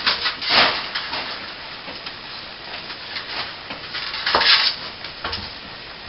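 Scraping, rustling and knocking as air-conditioning ducting and a ceiling vent are worked loose and pulled down from a plasterboard ceiling, with two longer, louder scrapes about half a second and about four seconds in.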